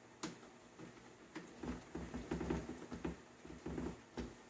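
A screwdriver driving a small screw back into a PlayStation 4's plastic case: a sharp click, then small clicks and scratchy rubbing as the screw is turned in.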